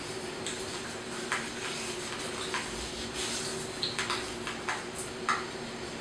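A scatter of short, wet clicks and smacks from paste-covered hands working at an open mouth, more frequent in the second half, over a steady low hum.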